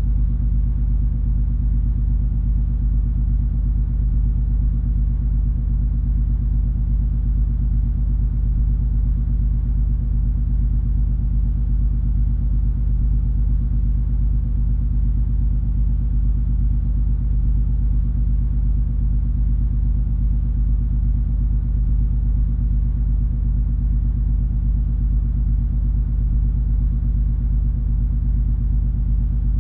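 Steady low rumble of the cruise ferry MS Color Fantasy's engines and hull under way, heard on board, with a constant hum and little high sound.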